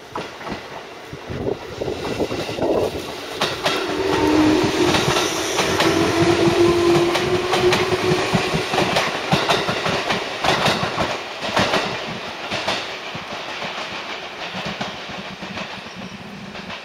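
A JR West 205 series electric commuter train passes close by. Its wheels clatter over the rail joints in a fast run of clicks, with a held tone underneath. The sound builds, is loudest in the middle as the cars go past, and fades as the train pulls away.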